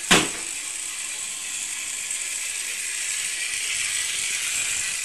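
Model railway train running on its track: a steady whirring rattle of the small motor and wheels on the rails, with one sharp click just after the start.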